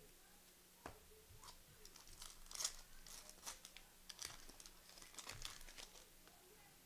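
Faint crinkling and tearing of a trading-card pack's plastic wrapper as it is ripped open and the cards are handled, in a string of short, irregular rustles.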